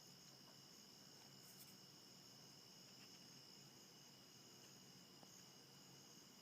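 Crickets chirping faintly in a steady, unbroken high-pitched trill.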